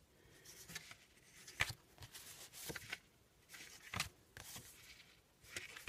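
Cardstock journaling cards being handled and flipped over one another: quiet papery rustles and slides with a few light taps.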